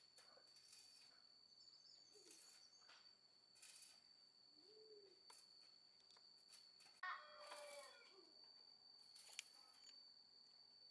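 Quiet background in which a rooster crows once, faintly, about seven seconds in. A steady high-pitched whine runs underneath.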